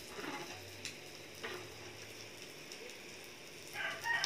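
Meat sizzling steadily on a Korean BBQ grill pan, with a few light clicks. Near the end a rooster starts to crow, its call pitched and sustained.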